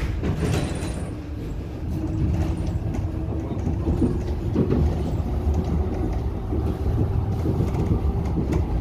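Cabin noise of a moving public-transport vehicle: a steady low rumble with a faint hum and a few brief rattles.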